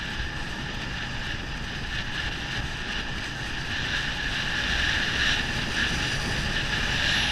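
Skis sliding over packed snow with a steady hiss, mixed with wind rushing over the camera's microphone. The rush grows a little louder in the second half as speed picks up.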